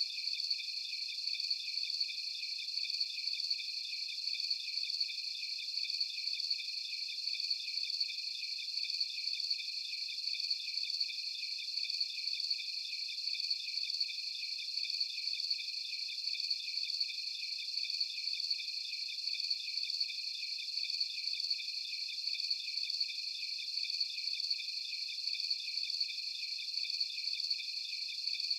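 A steady chorus of crickets, high-pitched chirps pulsing quickly and evenly, several callers layered over one another without a break.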